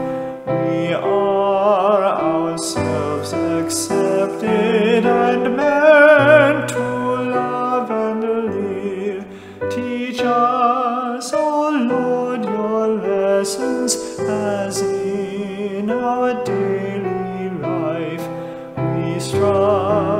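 A hymn sung slowly by a voice with vibrato over keyboard accompaniment, with short breaths between phrases.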